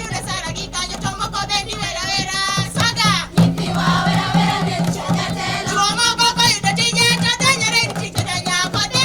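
Voices singing a Swahili song over amplified backing music with a steady beat.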